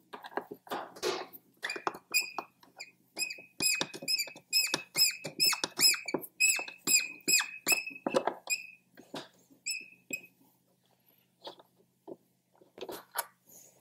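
An Allen-head bolt squeaking in short rhythmic chirps, about two a second, as it is turned out with a 3/16 Allen key, with light tool and handling clicks. The squeaking starts about two seconds in and thins out and stops about ten seconds in.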